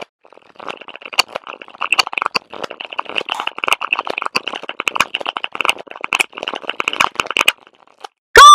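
Dense crackling, rattling sound with many sharp clicks, lasting about seven seconds, then a loud, harsh pitched cry that bursts in right at the end.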